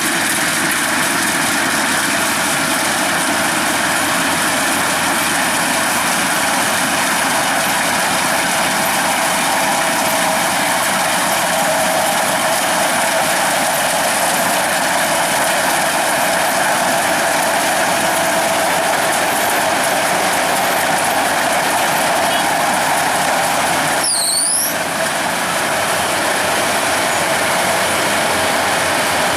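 Kubota DCX 100 rice combine harvester running steadily as it drives, a loud, even machine noise. It dips briefly, with a short high squeak, near the end.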